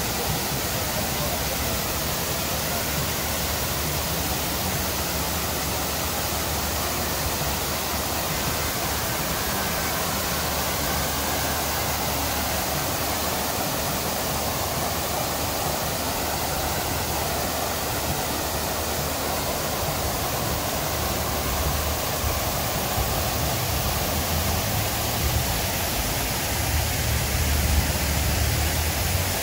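Steady rushing and splashing of large ornamental fountain water, with a low rumble swelling near the end.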